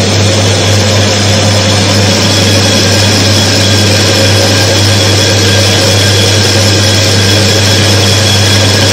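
Electric motor of a bench friction-test oil demonstrator running with the lubricated test ring turning under the load of a torque wrench pressed on the lever arm: a loud, steady machine hum with high whining tones over it, unchanging throughout.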